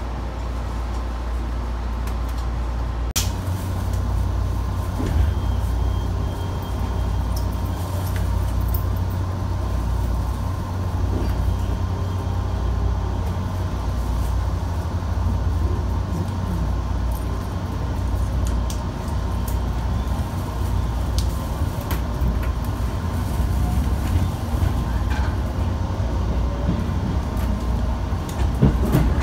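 Train running noise heard from inside the passenger car as it pulls away from a station: a steady low rumble, a sharp click about three seconds in, then a faint rising whine as it gathers speed. Wheels begin clacking over rail joints near the end.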